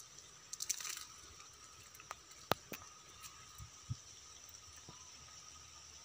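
Dry grass and twigs crackling and snapping underfoot in scattered, uneven footsteps, the sharpest snap about two and a half seconds in. A faint, steady high-pitched drone runs underneath.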